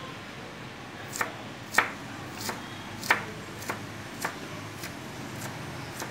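Kitchen knife chopping onion on a wooden cutting board: about nine sharp knife strikes a little over half a second apart, starting about a second in.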